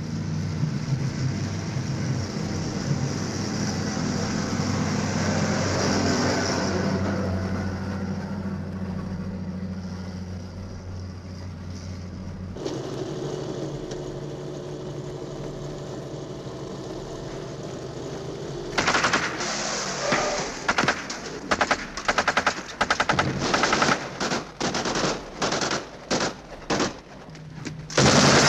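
A GMC military truck's engine running steadily. About two-thirds of the way in, repeated bursts of machine-gun fire and single shots break out, the gunfire of an ambush on the convoy.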